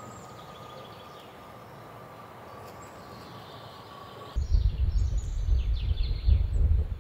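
Faint steady outdoor hiss with a thin, steady high tone. About four seconds in it cuts to gusting wind buffeting the microphone, a loud uneven low rumble, with birds chirping over it.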